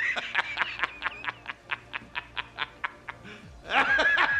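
A man's loud, hearty belly laugh. A high, drawn-out shriek of laughter breaks into quick rhythmic "ha-ha-ha" bursts, about six a second, then a second high squealing laugh comes near the end.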